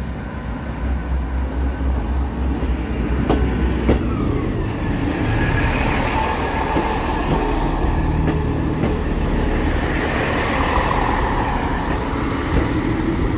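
Diesel multiple-unit passenger train running across a level crossing: a steady heavy rumble, sharp clicks of the wheels over the rail joints about three and four seconds in, and a metallic squeal that slides down in pitch and wavers through the middle of the pass.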